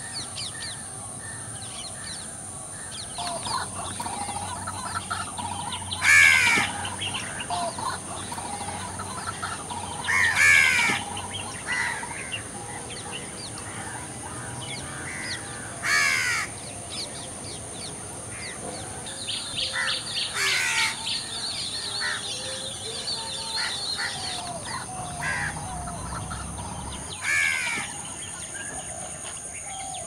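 Wetland birds calling: a loud, harsh, caw-like call rings out five times, every four to six seconds, among many softer chirps. A rapid high trill comes about two-thirds of the way through, all over a steady high hiss.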